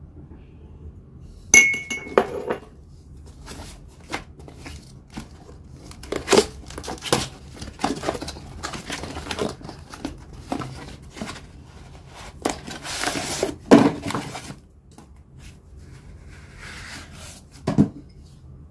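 Ceramic bowls being handled and unpacked: a sharp ringing clink of ceramic about a second and a half in, then irregular knocks and the rustle of cardboard packaging, with a longer rustle around the middle and a single knock near the end.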